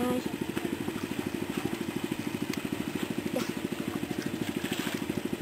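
A small engine running steadily at idle, an even low putter of about eight or nine beats a second.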